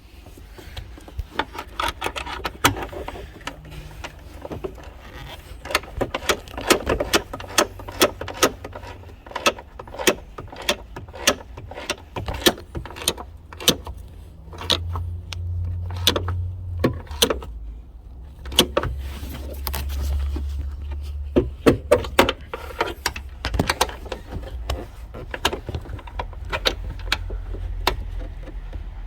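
A ratchet with a 17 mm socket clicking in short runs, with metal tools clinking, as a seat belt anchor bolt is tightened. A low hum comes in twice, about halfway through.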